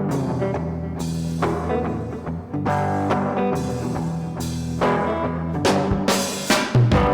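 Live guitar jam: sustained guitar notes over a low bass line and a percussive beat. Sharper, heavier drum-like hits come in over the last couple of seconds.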